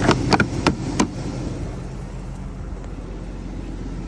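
About five sharp clicks in the first second, then a steady low hum from the 2003 Cadillac Escalade.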